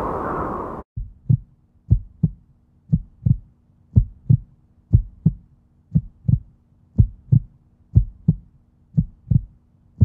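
Heartbeat sound effect: pairs of low thumps about once a second over a faint steady hum, starting about a second in, just after a louder whooshing sound cuts off.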